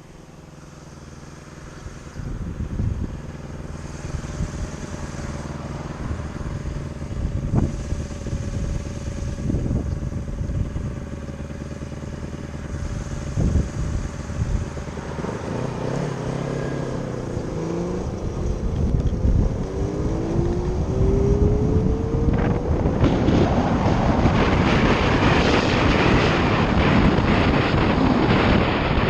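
Electric motorcycle on the move: a steady motor hum with a few knocks, then a rising whine as it speeds up, and wind rush over the microphone growing loud in the second half.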